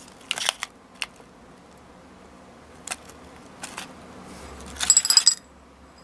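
Foil candy wrapper crinkling, then a handful of small hard candy tablets poured onto a ceramic plate, clattering and clinking with a bright ring for about half a second near the end.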